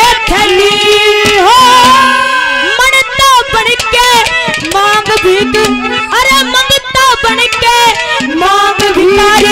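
A woman singing a Haryanvi ragni into a handheld microphone, in long held notes that slide up and down in pitch.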